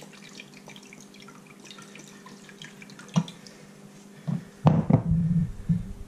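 Soy sauce dripping and trickling out of an upturned bottle into a measuring cup, a run of many small faint drips. About three seconds in comes a knock, then near the end a cluster of louder thuds and clatter as the bottle is set down on the tiled counter and the cup is picked up.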